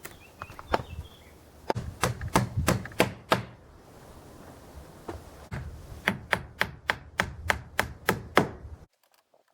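Sharp knocks of blows struck on wood, in two quick runs of about four a second: around seven, a pause, then about nine more, cutting off suddenly near the end.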